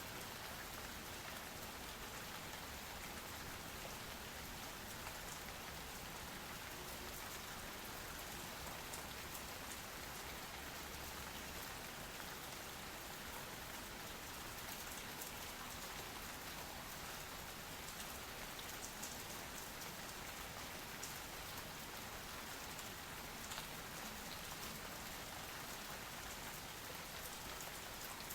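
Steady, even rain falling, with fine scattered drop patter.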